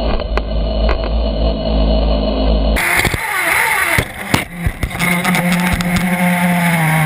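Nitro glow engine of a 1/8-scale RC buggy running, heard from a camera mounted on the car. The sound is muffled at first, then changes abruptly about three seconds in to a clearer steady idle note; the revs drop and a few sharp clicks follow about a second later.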